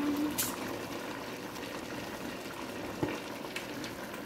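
A pot of yam porridge simmering, a steady bubbling hiss, with a short sharp click about half a second in and a fainter one about three seconds in.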